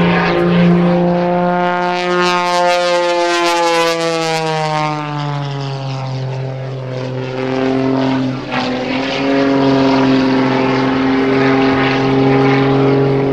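Modified Pitts aerobatic biplane's piston engine and propeller, a strong buzzing drone through aerobatic manoeuvres. Its pitch slides down about five seconds in, then holds steady at the lower note, with a brief dip near the middle.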